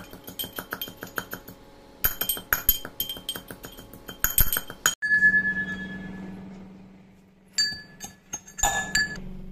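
Rapid light clinking, many small sharp strikes in quick succession, then a ringing tone about five seconds in that fades away, followed by a few more clinks near the end.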